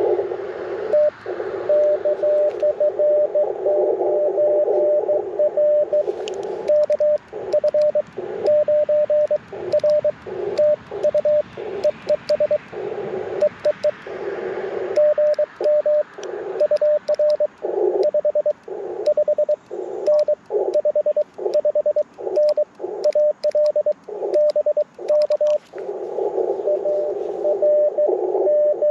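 Morse code (CW) on the Icom IC-705: a single mid-pitched tone keyed rapidly on and off in dots and dashes over receiver hiss that is narrowed by the CW filter. From about six seconds in, light sharp clicks come through as well.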